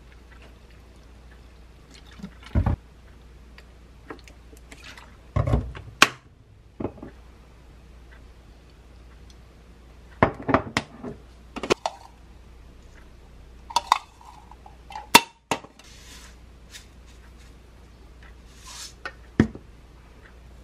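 Condiment bottles and a small glass bowl handled on a kitchen countertop: soy sauce, then vinegar and sesame oil poured into the bowl. Scattered sharp knocks and clicks come from bottles being set down and caps snapped shut, along with a few light clinks of glass.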